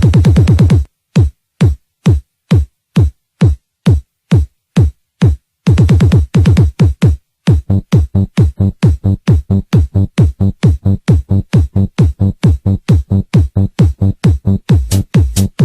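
Electronic dance music built on a drum-machine kick drum. About a second in, the full beat drops out to lone bassy kicks, about two a second, each falling in pitch. After a brief return of the full beat, the kicks speed up steadily into a fast roll near the end.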